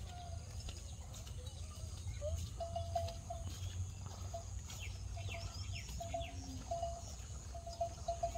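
Outdoor ambience of birds calling, with short repeated notes in quick runs and a few quick falling chirps, over a steady high insect buzz and a low rumble.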